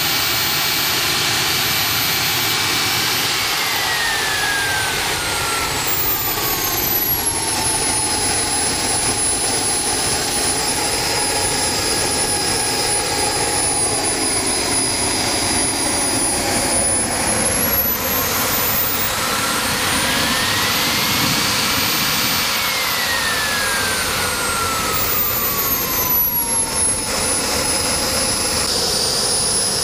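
King Tech K-80 micro turbojet running at speed, a loud rush with a high turbine whine over it. The whine falls as the throttle is eased back a few seconds in, climbs again around the 19-second mark, falls a second time, then starts to rise near the end.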